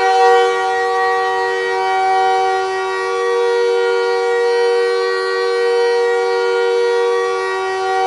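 Airchime K3HA three-chime air horn sounding as a hockey goal horn, one long steady chord held without a break: the signal that the home team has scored.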